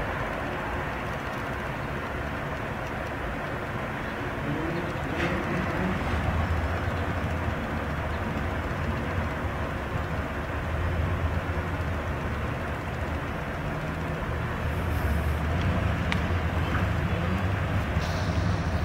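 Steady low rumble and hiss of outdoor background noise, swelling a little about six seconds in and again near the end.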